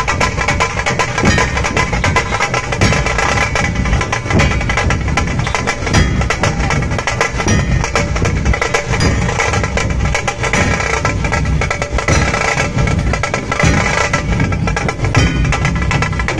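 Loud drumming with rapid, continuous strikes and no breaks.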